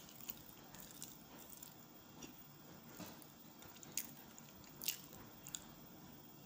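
Soft chewing and mouth sounds of someone eating banana cake, with a handful of short wet clicks and smacks, the loudest about five seconds in.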